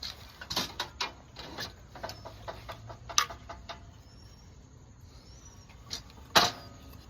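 Irregular knocks and clunks of lumber and a cordless circular saw being handled between cuts, with two sharper knocks about three seconds in and near the end. The saw's motor is not running.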